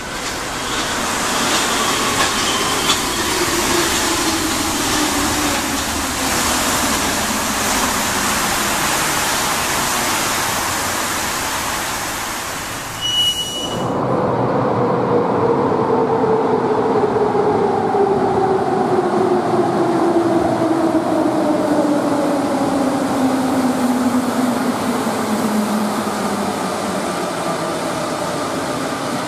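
A Paris Metro train running into an elevated station, its motor whine falling in pitch as it slows. After a sudden cut, a Lyon Metro MPL75 train pulls into an underground station, its drive whine sliding steadily down in pitch as it brakes.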